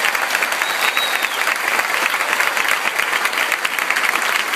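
Large concert-hall audience applauding, a dense steady clapping once the song has ended.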